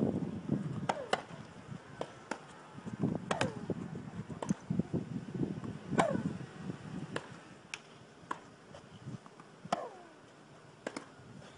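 Tennis rally: rackets striking the ball in sharp pops about once a second, some loud and some fainter, each with a brief ring.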